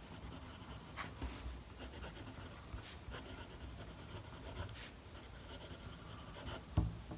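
Gama Eyas eyedropper fountain pen nib scratching faintly across paper in short writing strokes, with one soft knock near the end.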